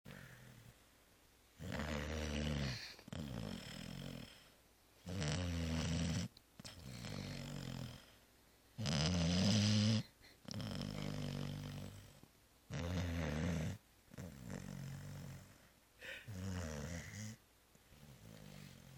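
Labrador retriever snoring in deep sleep: rasping snores in pairs, a louder one followed by a softer one, repeating about every three and a half seconds.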